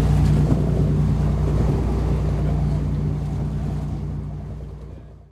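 Wind buffeting the microphone and sea noise on the deck of a sailing ship under way, over a steady low hum, fading out in the last second or so.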